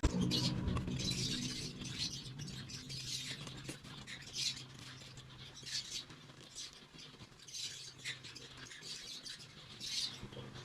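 Sped-up time-lapse audio of hand work on a motorcycle engine part: scattered short, high-pitched scrapes and clicks over a faint steady hum that fades after the first couple of seconds.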